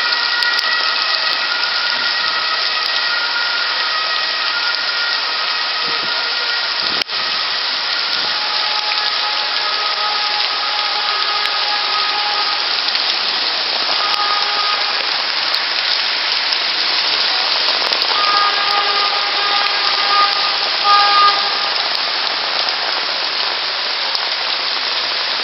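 Torrential rain pouring down in a dense, steady hiss, with faint high tones that come and go.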